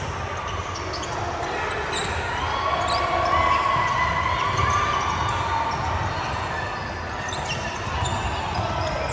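Basketball bouncing on a gym floor during game play, with repeated thuds.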